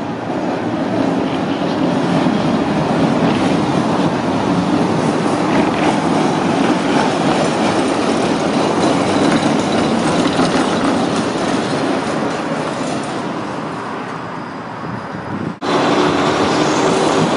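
A high-floor tram approaches and passes close by, its wheels rumbling steadily on the rails, then fades as it moves away. Near the end it cuts abruptly to another, low-floor tram passing close at full loudness.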